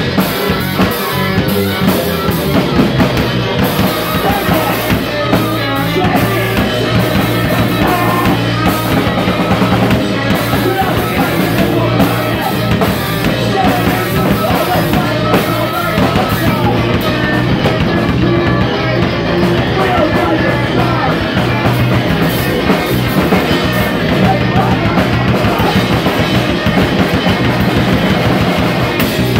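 Live rock band playing: drum kit driving a steady beat under guitar and bass.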